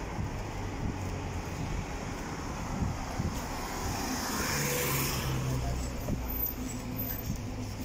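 A motor vehicle passing by on the adjacent road, its sound swelling to a peak about five seconds in and then fading, over steady street traffic noise.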